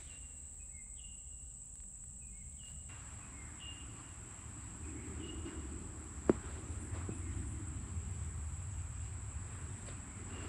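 Steady high-pitched insect drone, with a few short bird chirps in the first seconds. About six seconds in, one sharp knock: a golf ball landing on the green.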